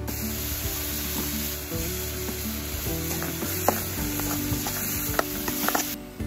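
Chopped tomatoes and onions sizzling as they fry in a metal kadai, stirred with a steel ladle that clicks and scrapes against the pan. The sizzle cuts off near the end.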